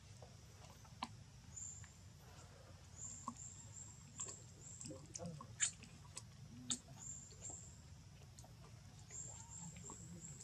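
Faint high-pitched chirping in short runs of three or four notes, with a few sharp clicks scattered through, the loudest a little past the middle, over a steady low background hum.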